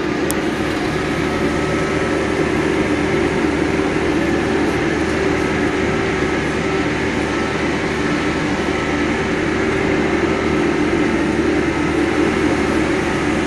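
Caterpillar 420E backhoe loader travelling along a road, its diesel engine running at a steady pace, heard from inside the cab.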